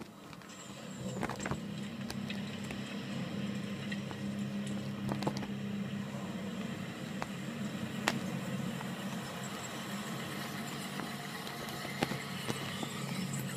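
Film soundtrack from a television in the background: a low, steady rumble that swells about a second in, broken by a few sharp clicks.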